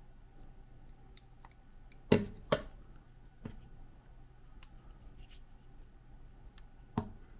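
Hard plastic camera accessories handled and set down on a wooden table: two sharp clacks about two seconds in, a softer knock a second later, another clack near the end, and small handling ticks between.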